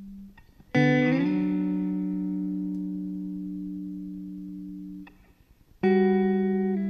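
Background music of slow, sustained chords: one struck about a second in and left to ring and fade, a short gap, then another struck near the end.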